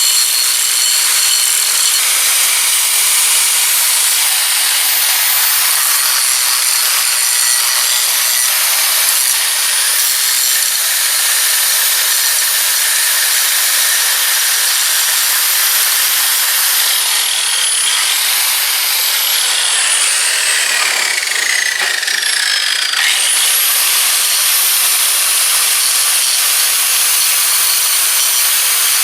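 Big angle grinder grinding steel and old weld off skid steer bucket teeth, a loud steady whine over grinding hiss. About seventeen seconds in its pitch falls steadily for several seconds as it slows, then jumps quickly back up to full speed.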